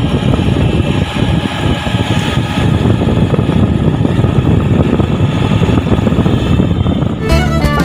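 Road and wind noise of a moving vehicle, loud and uneven, as on a phone microphone filming out of the vehicle's window. Music starts near the end.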